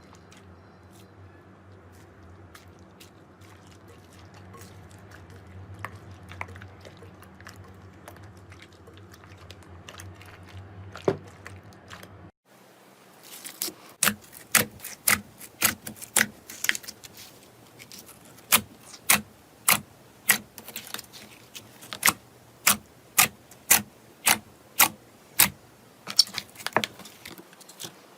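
Slime being handled, first with faint soft crackles over a low hum, then, from about twelve seconds in, sharp clicking pops at roughly two a second as it is pressed and stretched.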